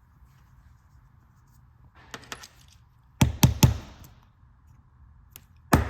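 Glock trigger bar and trigger shoe clicking as they are handled and fitted together: a few faint clicks about two seconds in, then three loud sharp clicks in quick succession, and another run of clicks near the end.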